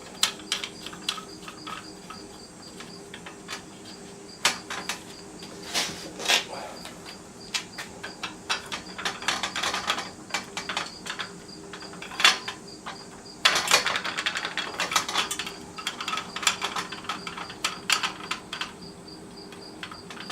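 Irregular clicks, taps and light knocks of metal and plastic parts being handled and fitted as work rollers are assembled onto a miter saw stand, busiest about two-thirds of the way through. A faint, steady, high pulsing chirp runs behind them.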